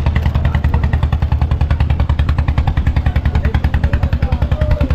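A small fishing boat's inboard engine running steadily, with a fast, even beat of about ten pulses a second.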